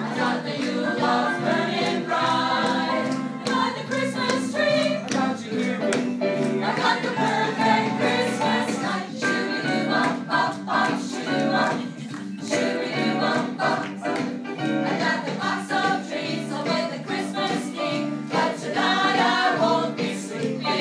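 Music: a group of voices singing together over a steady beat.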